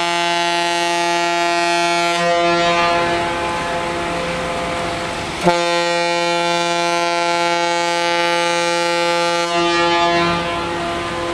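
Ship's horn sounding a long steady blast that fades into a rushing noise after about two seconds. A sharp click about five and a half seconds in, then the horn sounds again for about four seconds before fading into the rushing noise near the end.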